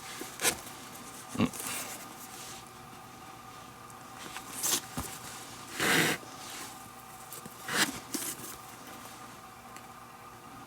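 Leather lace being drawn through the lacing holes of a baseball glove, about six short rubbing pulls spaced irregularly, over a faint steady hum.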